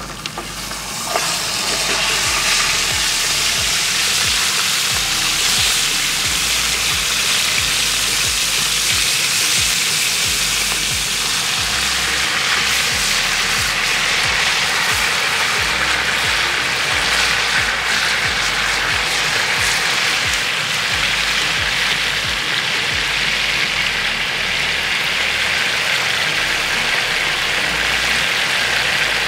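Chicken breasts frying in hot oil in a large pan, a loud steady sizzle that swells about a second in.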